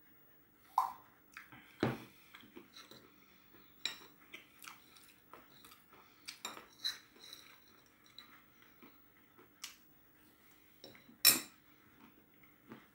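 Quiet eating and drinking sounds: scattered small clicks and knocks as a glass is put down and peanuts are handled and chewed, with one sharper knock a little after eleven seconds.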